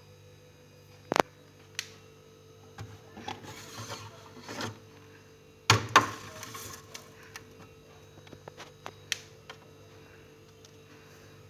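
Hard objects being handled: two sharp knocks, a stretch of rustling, then a louder double knock with a short clatter and rustle before six seconds, followed by a few light clicks. A faint steady hum runs underneath.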